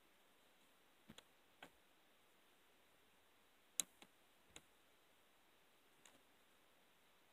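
Near silence with a handful of faint, sharp clicks scattered irregularly, the loudest nearly four seconds in.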